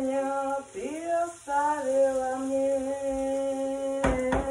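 A woman singing a slow song unaccompanied, in short phrases and then one long held note from about a second and a half in. Two sharp knocks near the end.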